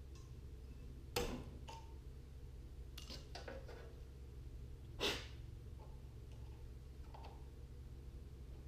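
Light clicks and rattles of hand-tool work on a Briggs & Stratton engine's carburetor linkage, over a steady low hum. Two short breath-like rushes stand out, about a second in and about five seconds in.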